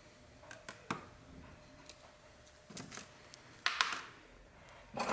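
Scattered light clicks and taps of hand tools working on a phone's screen and frame, with a short cluster of louder clicks a little under four seconds in.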